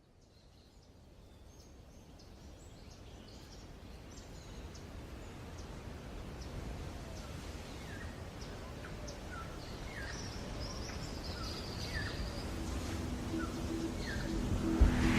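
Small birds chirping in quick, short downward-sliding calls over a low, steady outdoor rumble. The whole sound fades in from silence and grows gradually louder.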